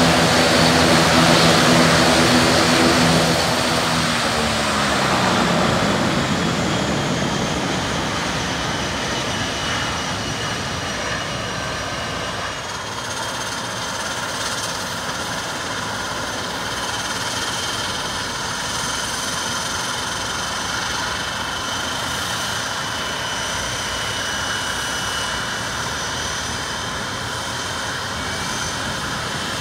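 ATR 72 turboprop engine and propeller winding down: a loud propeller hum falls in pitch over the first several seconds and grows quieter. A steady high turbine whine carries on after it.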